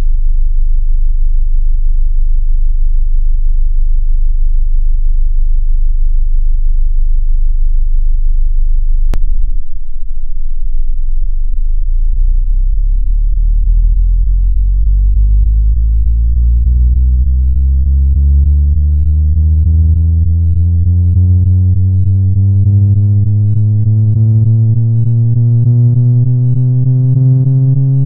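Computer-generated cubic sine-wave tone (sin(ωt)^3), part of a 20 Hz to 410 Hz frequency sweep. It starts as a steady low hum, a sharp click comes about nine seconds in, and then the pitch glides slowly and steadily upward.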